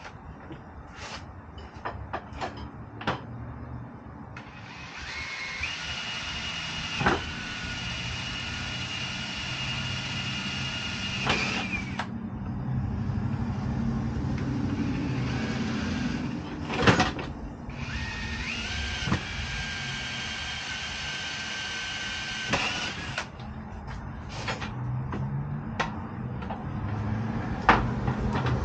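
A cordless drill boring holes in an aluminum ladder-rack bar: two runs, about seven and then five seconds long, each a steady motor whine that steps up in pitch as it starts. Sharp clanks and knocks of the metal bar and tools being handled come before, between and after the runs.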